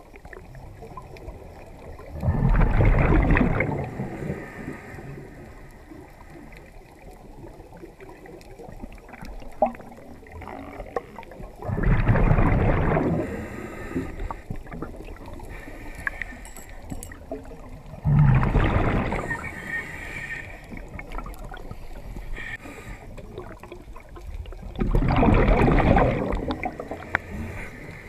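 A diver's exhaled breath bubbling out under water in four bursts, each about a second and a half long and six to seven seconds apart, over a soft steady underwater wash with faint clicks.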